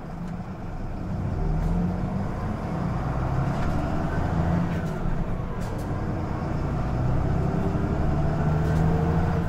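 Mitsubishi Fuso Aero Midi city bus's diesel engine pulling away and accelerating, heard from inside the cabin. Its note grows louder over the first couple of seconds, then climbs in several stretches that drop back between them as it works up through the gears.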